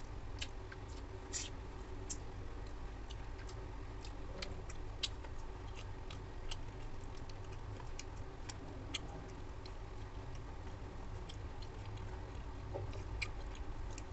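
Eating by hand from a steel plate: irregular light clicks and ticks as fingers work rice against the metal and the food is chewed, over a steady low hum.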